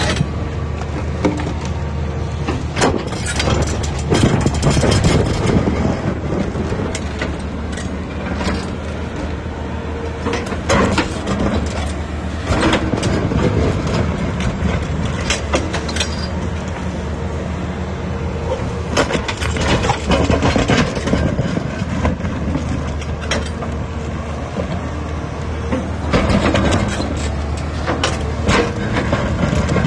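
A large hydraulic excavator's diesel engine running steadily under load, with repeated knocks and crunches as its rock ripper tears into and breaks rock.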